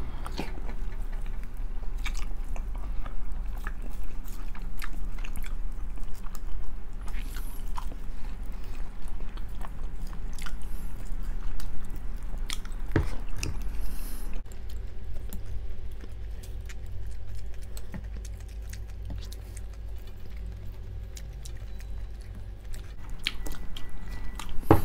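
Close-up eating sounds: chewing and biting into pork hock (pata), with many small wet clicks and crunches, over a steady low hum.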